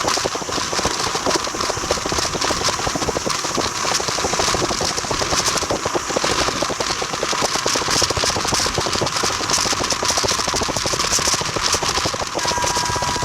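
Train running on the track, a continuous fast rattle and clatter of wheels and carriage. A steady whistle tone starts near the end.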